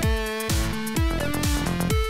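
Electronic dance music with a kick drum on a steady beat, about two a second, under sustained synth notes.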